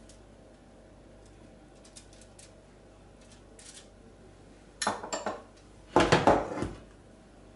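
Faint clicks of a spoon spreading jam, then two short bursts of kitchenware clatter, a glass bowl, spoon and metal pot knocking, about five and six seconds in, the second louder.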